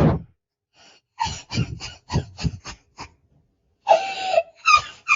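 A man's voice without words: a sharp breath, then a run of quick breathy gasps, about three or four a second, then a drawn-out pitched cry and short pitched bursts near the end.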